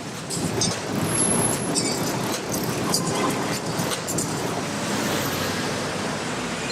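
City road traffic: a steady rumble and hiss of passing vehicles, with scattered short clicks and rattles in the first couple of seconds.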